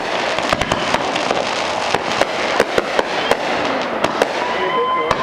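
Aerial fireworks display: many sharp bangs and pops at uneven intervals as shells burst, over a continuous noisy rumble of crackle. A steady high tone joins in near the end.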